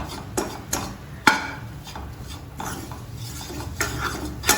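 A spoon stirring a butter-and-flour roux in a pan, scraping and clinking against the pan at irregular moments, over a low steady hum. The roux is being lightly roasted on low heat before the milk goes in.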